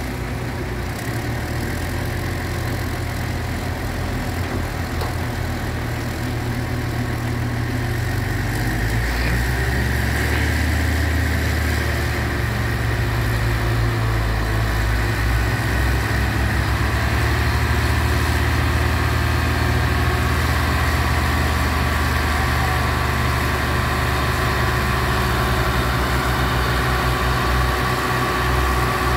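Diesel engines of truck-mounted mobile cranes running under load as they hoist a heavy shipping container. The engines are steady, then grow louder and busier about nine seconds in, and stay at that higher level.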